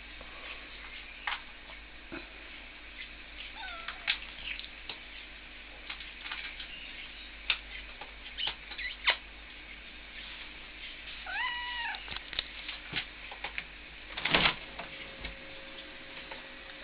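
Turkish Van cat meowing: a short meow about four seconds in and a longer, arching meow around eleven seconds, with scattered light clicks and a louder knock near the end.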